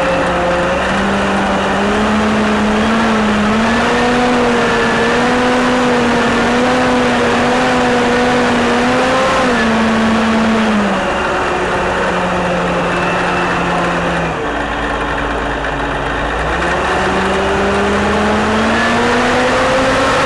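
Diesel engine of a Caterpillar 988A wheel loader working, its pitch rising as the throttle opens about a second in. It holds there, drops back in two steps past the middle, then climbs again near the end.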